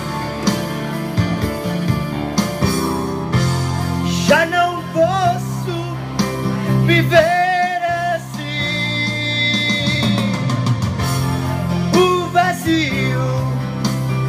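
A man singing a slow romantic ballad over instrumental backing music, with long, wavering held notes.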